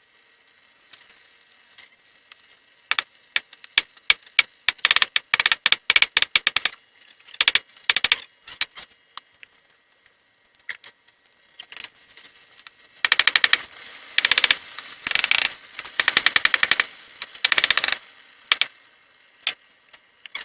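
Rapid metal-on-metal hammer blows on hot steel, in fast runs with short pauses and a few single strikes between, as the blade's tip is forged to shape.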